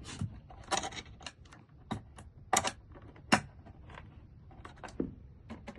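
Irregular light metallic clicks and taps as a screwdriver and screw are fitted into a door lock, with two sharper clicks partway through.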